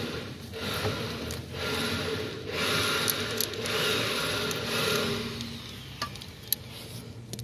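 Metal hydraulic pump parts being handled: rough rubbing and scraping in about five strokes of a second or so each, with a few sharp metallic clicks, over a faint steady hum.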